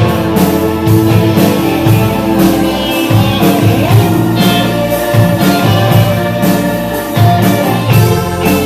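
Band music: guitar and sustained notes over a steady drum beat, with some singing.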